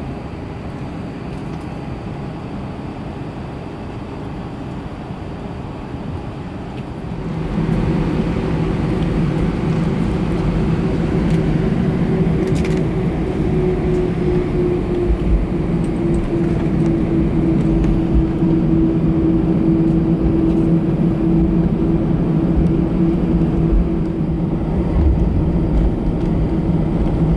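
Airbus A319 cabin noise on the ground: a steady hum, then about seven seconds in the jet engines spool up into a louder, steady drone whose tone slides slightly lower and settles.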